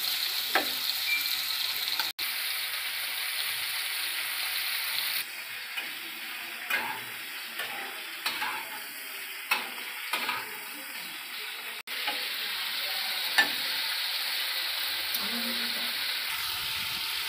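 Peeled prawns sizzling as they fry in hot oil in a kadai, with a metal spatula scraping and tapping against the pan as they are stirred. The sizzle is a steady hiss that cuts out for an instant twice.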